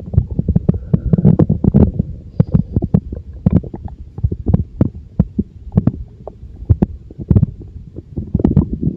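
Stomach growling and gurgling: a low, uneven rumble broken by many quick, irregular pops and clicks.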